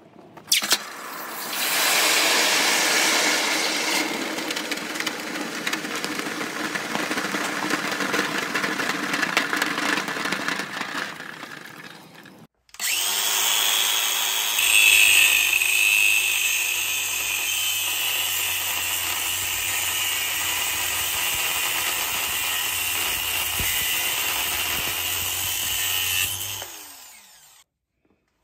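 DeWalt 18V XR cordless angle grinder with an abrasive disc grinding the edges of a cast copper ingot: a steady whine over rough grinding noise, which stops shortly before the end. Before it, for the first half, comes another loud stretch of rough power-tool noise that ends abruptly.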